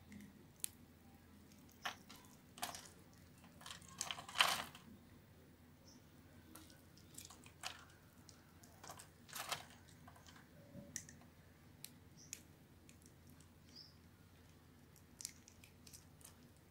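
Dry bar soap scored into small cubes crunching as it is cut with a knife and broken apart by hand: scattered crisp snaps and crackles at irregular intervals, loudest in a cluster about four seconds in.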